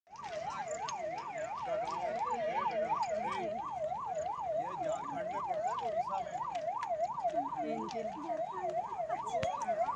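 Emergency vehicle siren on a fast wail, sweeping up and down about three times a second without a break.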